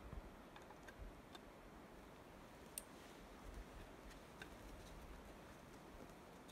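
Near silence: faint outdoor ambience with a few scattered faint ticks, one a little sharper about three seconds in.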